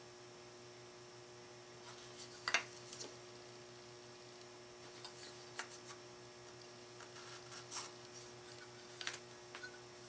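A few short, faint scrapes and taps as a sanding block is rubbed on a small painted steel oil box, lightly sanding it between coats of sealer; the loudest comes about two and a half seconds in. A steady electrical hum runs underneath.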